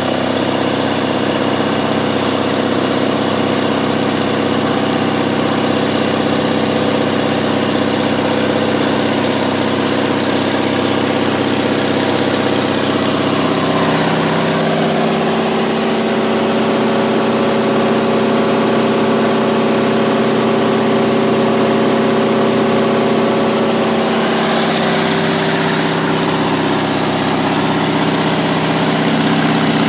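MEP-002A 5 kW military generator's diesel engine running steadily under load as the electrical load on it is raised. Its tone shifts about halfway through, and it keeps running smoothly without bogging down.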